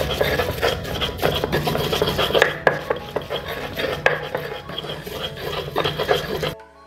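Pestle grinding garlic and spices in a black stone mortar (Indonesian ulekan and cobek): rapid, gritty scraping and knocking against the stone. It stops abruptly shortly before the end.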